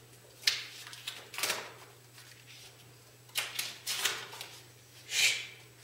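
Dry-erase marker writing on a whiteboard: about five short hissing strokes, spread out with pauses between them.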